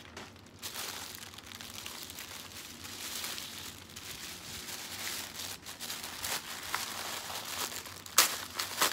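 Packaging crinkling and rustling continuously as it is handled and opened, with a sharper, louder crackle near the end.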